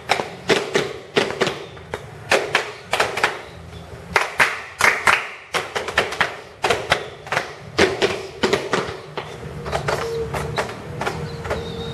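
Body percussion: a rhythmic pattern of sharp claps, slaps and thumps made with the hands on the body, several strikes a second in short groups.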